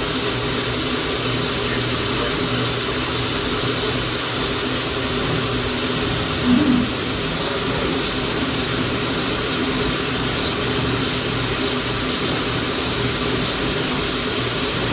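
Bridgeport TC3G CNC vertical machining centre running with a steady, even whirring hum and hiss, its level unchanging. A brief louder sound about six and a half seconds in.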